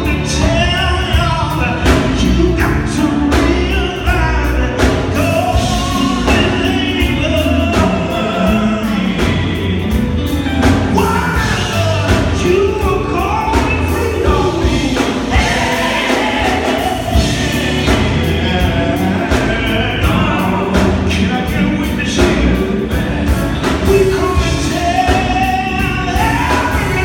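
Live gospel music: a male lead singer singing through a PA over an electric guitar and drum kit, with a steady drum beat.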